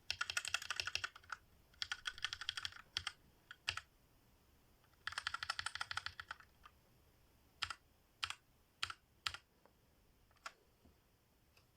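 Typing on a cheap mechanical 60% keyboard: three quick runs of key clicks, then a handful of single, spaced keystrokes.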